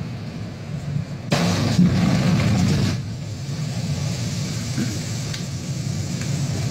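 Lightning striking open water close by: a sudden loud crack about a second in, then a roar of thrown-up water and spray for about a second and a half, easing into a lower rumble. A steady low wind rumble on the microphone runs underneath.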